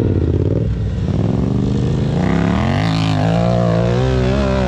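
Sport quad (ATV) engines running. One quad revs up and pulls away up a steep sand slope, its engine note rising about two seconds in and then holding steady at high revs.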